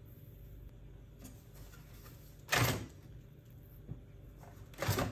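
Plastic toner cartridges of a Ricoh SP C250DN colour laser printer being pulled out of their slots, with a short scraping clatter about halfway through and another near the end.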